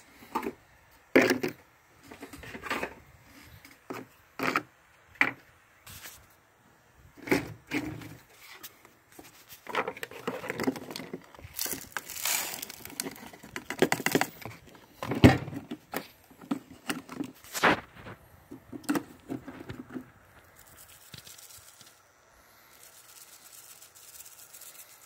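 Crushed turquoise grit being handled and sifted: a string of separate short knocks and rattles, a busier stretch of scraping and rattling in the middle, and a faint soft hiss near the end as it is shaken in a mesh sieve.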